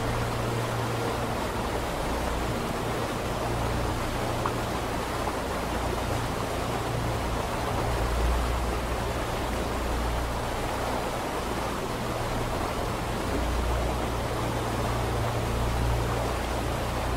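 Steady, even hiss of an ambience noise bed, with a low rumble underneath that swells and fades every few seconds.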